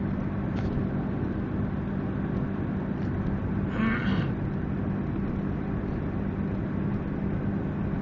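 Steady vehicle running noise with a constant low hum, heard without a break, and one brief higher-pitched sound about four seconds in.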